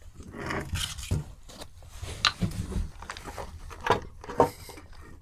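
A small rock being slid out from under a fireplace, scraping with several sharp knocks.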